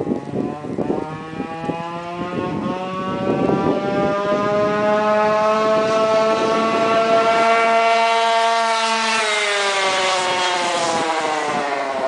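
Goped GSR46R stand-up scooter's 46cc two-stroke engine at high speed passing by: it grows louder as it approaches, its pitch drops sharply as it goes past about nine seconds in, and it fades away.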